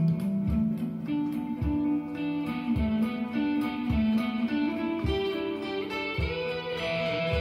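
Guitar playing a slow, melodic improvised line of held notes over a steady low beat that thuds about once a second.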